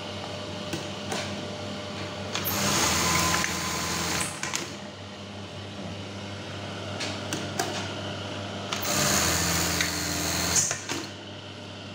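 Brother 814 industrial buttonhole sewing machine running: its motor hums steadily, and it sews twice for about two seconds each, around 2.5 and 9 seconds in, with sharp mechanical clicks around the cycles. The stop at the end of each cycle sounds soft, no longer a harsh bang, after the speed and screw adjustment.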